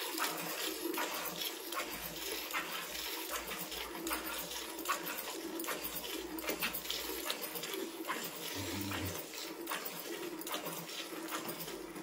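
Hand-milking a cow: jets of milk squirting into a steel pail already partly full of milk, in a steady rhythm of alternating squirts.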